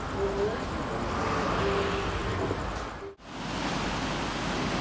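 Steady outdoor background noise with traffic-like hiss, cutting out sharply about three seconds in; then the steady wash of waves on a sandy beach.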